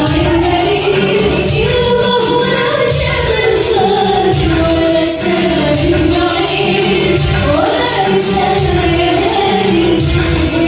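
A woman singing a melodic song over instrumental accompaniment with a steady percussion beat.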